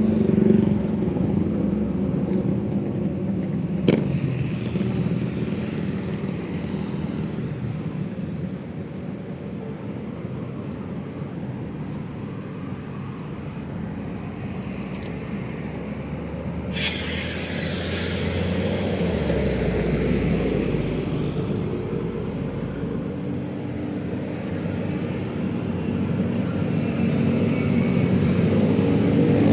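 Steady road traffic: engines and tyres running past in a low rumble. A sharp click comes about four seconds in. About two-thirds of the way through, a sudden hiss starts and fades over several seconds, while a deeper rumble from a heavy vehicle passes.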